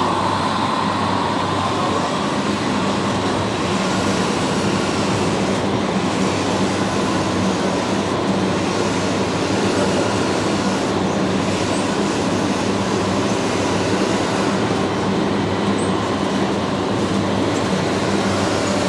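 Radio-controlled model construction trucks' electric motors and gear drives running steadily, with a steady hum and a high whine that fades in the first couple of seconds.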